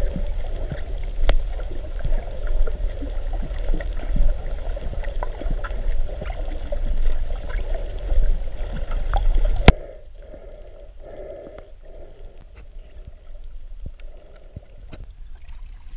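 Muffled underwater water noise heard through a submerged camera: sloshing and gurgling with scattered small clicks and crackles. About ten seconds in a sharp click marks a change to a quieter stretch with soft, muffled pulses.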